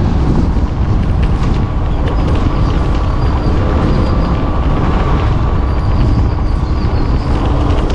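Motorcycle on the move: a steady low rumble of engine, wind and road noise.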